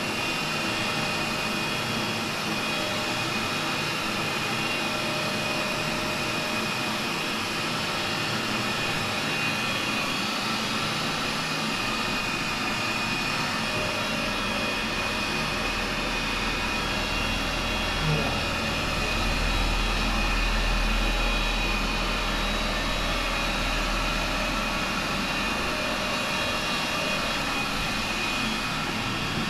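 Cordless electric dog clipper running steadily as it shaves through a poodle's long matted coat, a constant high hum over an airy hiss. A low rumble swells up and fades back in the middle stretch.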